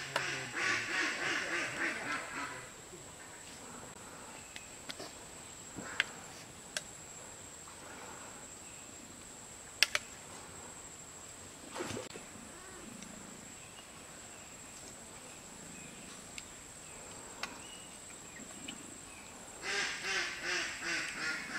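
Ducks quacking: a fast, evenly paced run of quacks lasting about two and a half seconds at the start, and another run near the end. In between, a few sharp clicks, the loudest about ten seconds in.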